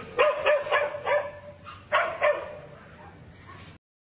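Dog barking: four quick barks, then two more after a short pause. The sound cuts off suddenly near the end.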